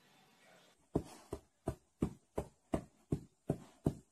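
A pet's tail thumping again and again against a leather sofa cushion, about three thumps a second, starting about a second in.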